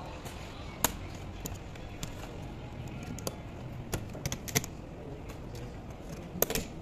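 Scattered sharp clicks and taps of a screwdriver and fingertips on a laptop's metal keyboard plate while the keyboard is being removed, with a quick cluster of them about four seconds in and a pair near the end, over steady background noise.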